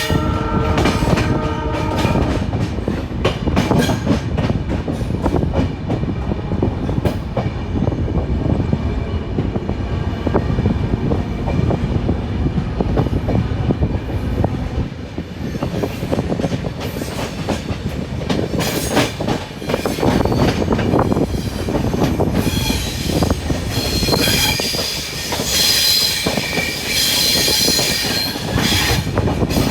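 A moving train heard from on board, wheels clattering over rail joints with a steady running rumble. A horn-like tone sounds for about the first two seconds. In the last several seconds the wheels squeal high and steady.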